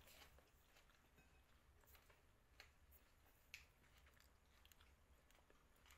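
Near silence: room tone with a low hum and a few faint, short clicks.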